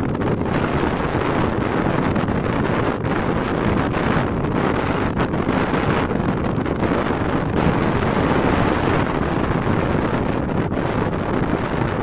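Strong wind buffeting the microphone: a loud, steady low rumble.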